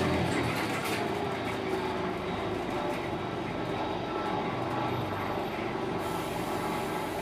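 Scania K280UB bus's 9.3-litre five-cylinder DC9 diesel engine and ZF Ecolife automatic driveline running steadily, heard from inside the passenger cabin.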